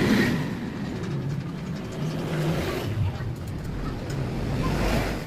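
Steady rumble of a motor vehicle engine running.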